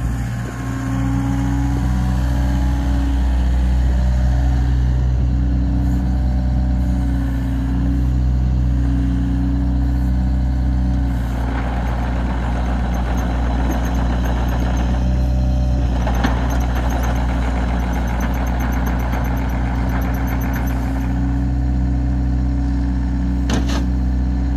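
Volvo ECR58 mini excavator's diesel engine running steadily while the boom, arm and bucket are worked, with a louder, busier stretch for several seconds in the middle as the hydraulics take load. A single short knock comes near the end.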